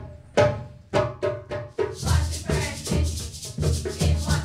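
Percussion: a hand drum is struck a few separate times, then from about two seconds in it settles into a steady rhythm, with a sharper high beat running over it.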